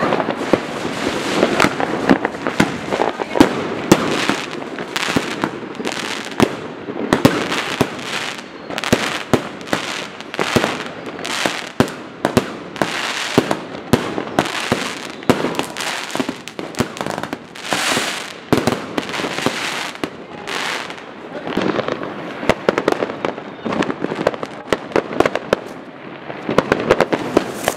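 Fireworks and firecrackers banging non-stop all around: dense, overlapping bangs, several a second, with no let-up.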